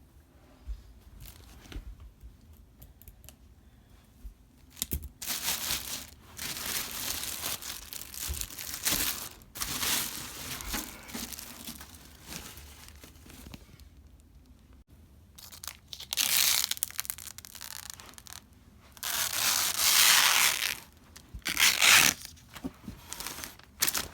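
Packaging being torn open and crumpled, the sound of a new PC case being unboxed. After a few quiet seconds it comes as a long spell of rustling and tearing, then a pause, then several louder, sharper tears near the end.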